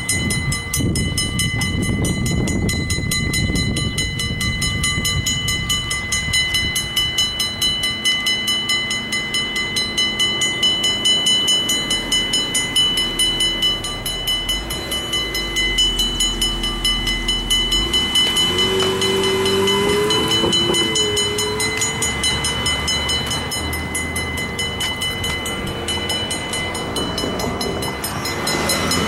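Railroad crossing warning bell ringing rapidly and without pause while the signals are activated with no train present: the crossing is malfunctioning.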